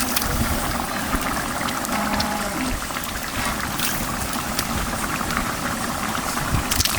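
Rabbit meat masala bubbling steadily as it cooks in a pot.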